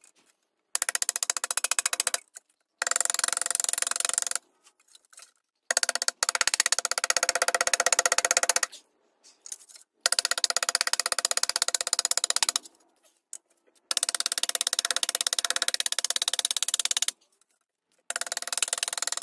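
Ball-peen hammer tapping quickly on steel rivets against an anvil, peening them flat: six bursts of rapid metallic taps, each a few seconds long, separated by short silent gaps.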